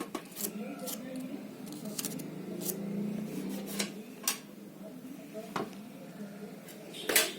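Scattered small clicks and taps of a spiral sticky notepad and its packaging being handled, the loudest cluster near the end, over a faint low murmur.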